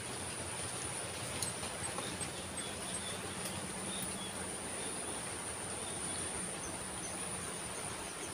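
Open-air rural ambience: a steady high-pitched insect drone over a constant hiss, with a few faint, short bird chirps.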